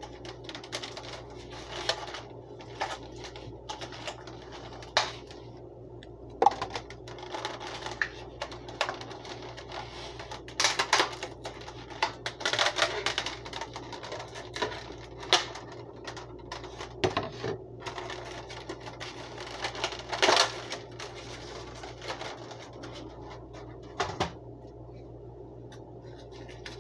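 Stiff clear plastic packaging crackling and clicking in irregular bursts as it is pulled open and off a new aluminium muffin tin.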